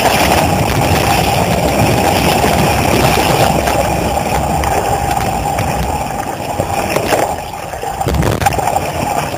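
Steady, muffled rush of water moving over a GoPro's underwater housing, heavy in the low end. A couple of short knocks come near the end.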